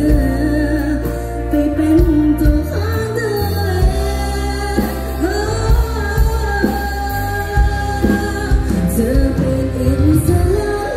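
Live band playing amplified pop music: a woman singing a melody into a microphone over electric guitar, a heavy low bass line and a steady drum beat.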